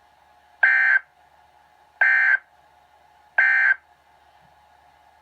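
Emergency Alert System end-of-message signal from NOAA Weather Radio: three short, identical bursts of buzzy digital data tones, about a second and a half apart. They mark the end of the severe thunderstorm warning broadcast.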